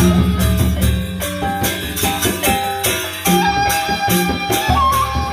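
Lombok gendang beleq ensemble playing a baleganjur-style piece: large barrel drums beating low under held ringing gong tones, with a steady beat of cymbal clashes about two or three times a second.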